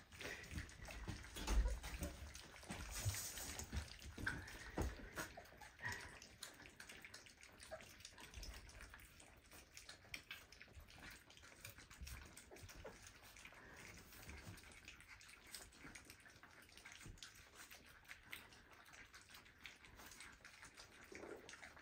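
Four-week-old Aussiedoodle puppies moving about in their pen: faint, scattered small clicks, taps and wet-sounding noises, busiest in the first few seconds.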